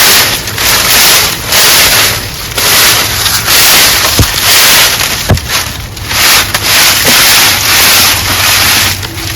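Dry sugarcane leaves rustling loudly in repeated surges as a long, freshly cut cane stalk is pulled and dragged out through the clump. Two sharp cracks sound in the middle.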